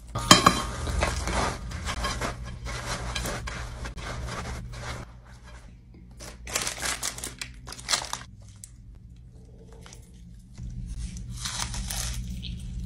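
Crinkling and rustling in short bursts as crisp red rice cereal is poured into a metal pot and stirred, and parchment paper is crumpled, over a low steady hum.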